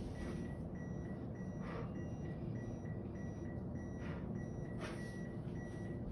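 AED training unit's CPR metronome beeping, a steady run of short, evenly spaced high beeps that pace chest compressions after the shock has been delivered.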